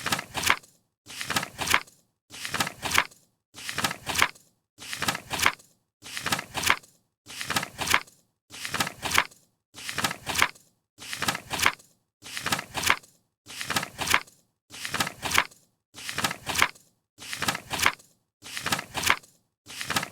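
A paper page being turned, over and over about once a second: each turn is a short rustle that builds to a crisp flip, with a brief silence between turns.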